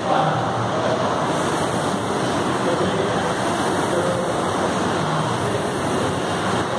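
Air-resistance rowing machine's fan flywheel spinning as the athlete rows hard, a steady rush of air.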